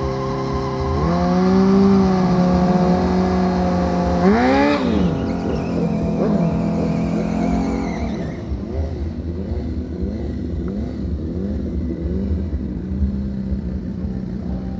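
Harley-Davidson V-twin motorcycle engine revving. A held note steps up about a second in, a quick rev blip climbs and falls about four seconds in, and from about halfway on it runs lower with small, uneven swells of throttle.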